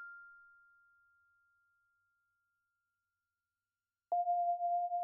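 A bell-like electronic chime rings out and fades away within the first half second. Then comes silence, and about four seconds in a steady pure electronic tone begins and holds.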